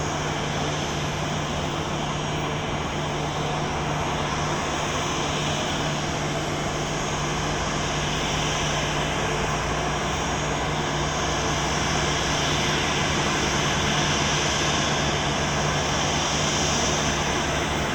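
Boeing 737-800's CFM56 jet engines running steadily: an even rush with a low steady hum underneath, growing slightly louder over the second half.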